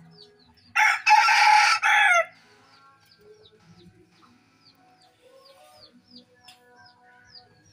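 A rooster crows once, loud and close, starting about a second in and lasting about a second and a half. Behind it a small bird keeps up a string of short, high, falling chirps.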